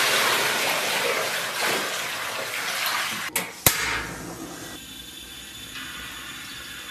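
Water poured from a plastic bucket into a steel basin, splashing steadily for about three seconds. Then come two sharp clicks and a much fainter steady hiss as the gas stove under the wok is turned on.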